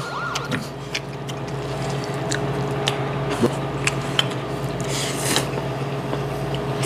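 Ramyeon noodles being slurped and eaten with chopsticks: short clicks and a wet slurp about five seconds in, over a steady low hum. The tail of a warning-alarm sound effect cuts off about half a second in.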